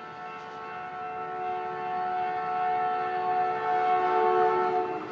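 Caltrain passenger train with gallery cars coming into the station: a steady whine of several held tones at once that grows louder, then falls away about five seconds in.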